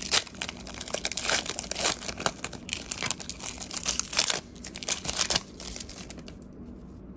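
Foil wrapper of a Diamond Kings baseball card pack being torn open and crinkled by hand: a dense crackling that dies away about five seconds in.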